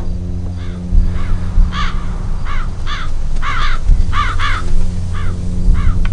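Crows cawing in a flock: short calls come one after another about every half second, some overlapping, over a steady low rumble.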